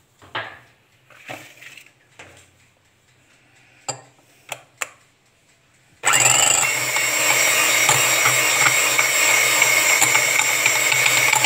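Electric hand mixer switched on about six seconds in: its motor spins up and then runs steadily and loudly as its beaters whisk two raw eggs in a glass bowl. Before it, a few light knocks and clicks.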